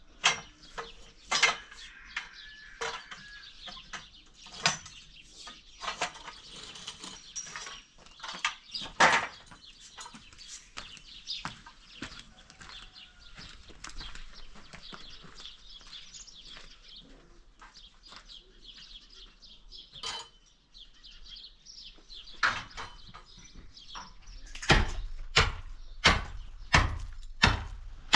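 Scattered knocks and clinks over a faint high hiss, then near the end a run of heavy, evenly spaced blows, about three every two seconds, like tool strikes on construction material.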